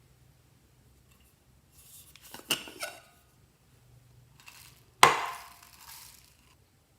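Hard objects being handled: a few quick clinks, then a sharp knock with a short ringing decay.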